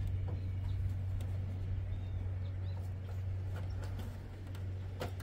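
Plastic push clips being pressed into the plastic radiator shroud cover: faint taps and one sharp click near the end, over a steady low hum. A bird chirps faintly a couple of times.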